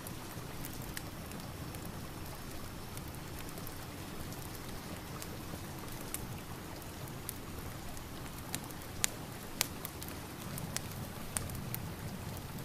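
Steady rain together with a crackling wood fire. The fire's sharp pops are scattered through the second half, and the loudest two come about nine seconds in.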